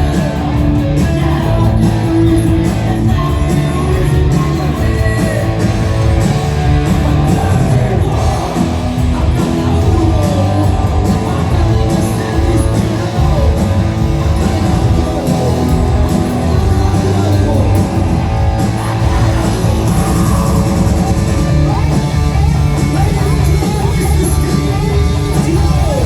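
Punk rock band playing live: loud distorted electric guitars, bass and drums, with singing.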